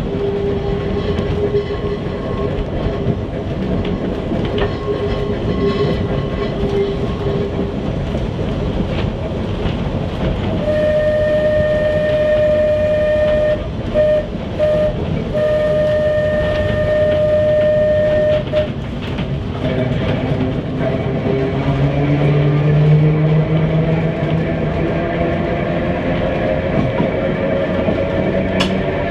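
Manx Electric Railway saloon tramcar running on the line, heard from inside the wooden saloon: a steady rumble of wheels on rail with a steady tone through the first several seconds. In the middle a strong steady high tone is held for about eight seconds with a couple of brief breaks, and in the last several seconds a whine rises in pitch.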